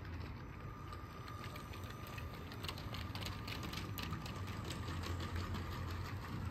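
Lego train's small electric motor running with a steady whine, its wheels clicking over the plastic track joints; the clicks come thickest in the middle as it passes close by.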